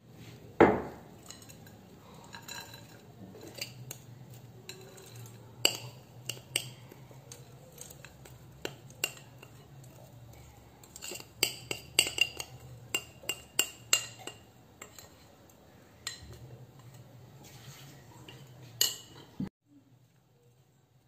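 A metal spoon clinking and scraping against a glass bowl and a steel cake ring as a crushed cookie-and-butter crumb mixture is spooned out and pressed down: irregular clinks and taps, after a sharp knock about half a second in. The sound cuts off suddenly near the end.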